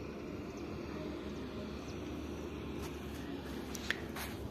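Steady low rumble of distant diesel engines from heavy trucks and an excavator loading sand, with a few sharp clicks near the end.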